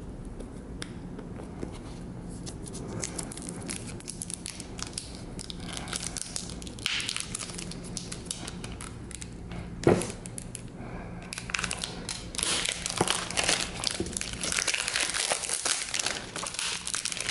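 Clear plastic shrink-wrap being peeled and torn off a smartphone box, crinkling and crackling throughout. There is a single knock about ten seconds in, and the crinkling grows denser and louder over the last few seconds as the wrap comes free.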